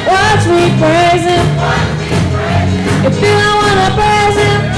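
Youth gospel choir singing over live band accompaniment, with a steady beat.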